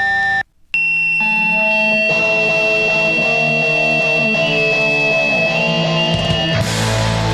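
Hardcore punk music on distorted electric guitar. After a brief break about half a second in, the guitar rings out chords under a long held high note, and about six and a half seconds in the full band comes in with drums and bass.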